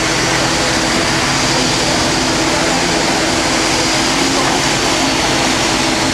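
ATR-72 turboprop engines and propellers running with a steady drone and hum, heard through the terminal's window glass.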